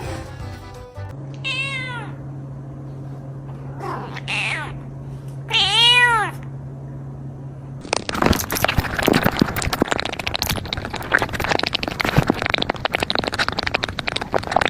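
A cat meowing three times, the last call the loudest, over a low steady hum. About eight seconds in, a dense, loud crackling and rustling noise takes over.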